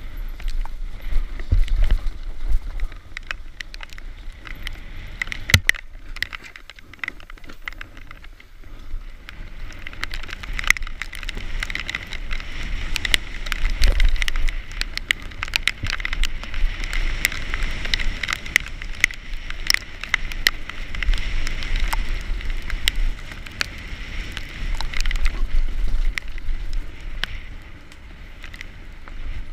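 Mountain bike descending a rough dirt trail at speed, heard from a helmet-mounted camera: a constant clatter of chain and frame knocks over bumps, tyres hissing on dirt, and wind buffeting the microphone.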